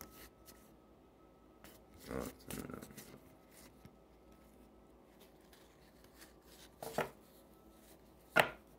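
Topps Stadium Club trading cards being handled and flipped through by hand: a few short, soft card rustles and taps, with two sharper card snaps near the end, the last one the loudest.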